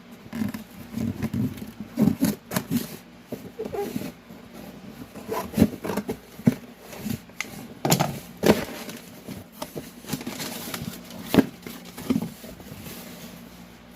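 A package being opened and handled by hand: irregular scraping and rustling broken by sharp clicks and knocks, several of them loud.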